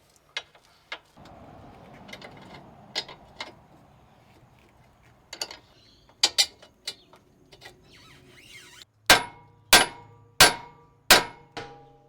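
Hammer striking a sledgehammer head set against the lip of a Subaru Forester's front control arm: after some light knocks and clicks as the tools are placed, a steady run of loud metallic blows begins about nine seconds in, each one ringing. The blows are meant to knock the control arm down off its ball joint.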